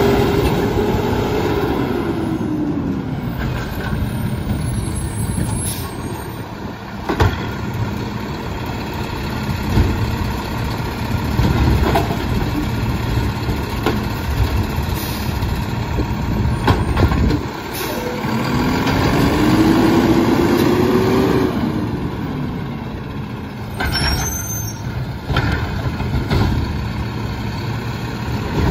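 Mack LEU garbage truck's engine running and revving up and down twice while its McNeilus automated side-loader arm grabs, lifts and dumps a trash cart, with knocks and clanks of the cart and arm against the hopper. A short air hiss from the truck's air brakes comes near the end.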